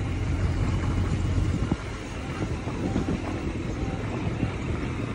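Yamaha MT-09 Tracer GT's three-cylinder engine running at low revs on a descent, with the tyres crunching over a loose gravel road and scattered small knocks and ticks from the stones.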